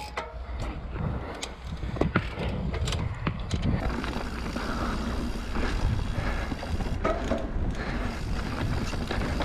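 Radon Jab enduro mountain bike ridden down a dirt forest singletrack: tyres rolling over the trail with a steady low rumble, and sharp clicks and knocks over the first four seconds or so.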